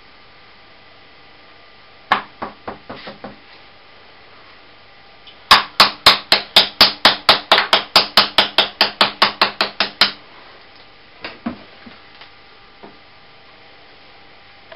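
Soft-faced mallet tapping an aluminium workpiece clamped in a shaper fixture, seating it down before the cut: one harder blow and a few lighter taps, then a quick run of about twenty taps at about five a second, and a few faint knocks near the end.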